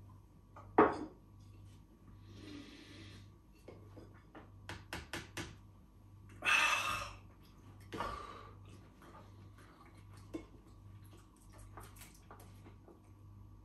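A man drinking a shot of vodka. A sharp knock of glass comes about a second in, followed by breathy exhales and a scatter of small clicks and clinks of glassware and dishes.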